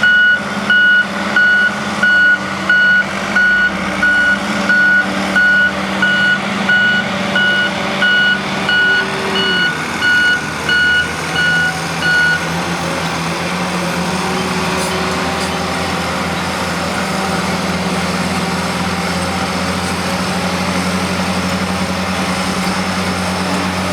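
Backup alarm of a heavy construction vehicle beeping loudly, about one and a half beeps a second, stopping about halfway through. A heavy engine runs underneath throughout, its pitch stepping up about ten seconds in.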